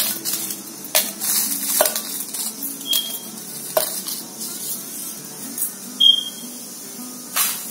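Dry whole spices (dried red chillies, roasted chana dal and coriander seeds) being swept off a ceramic plate into a stainless-steel mixer-grinder jar: scattered clatters and rattles as they drop onto the steel, with two brief high ringing clinks.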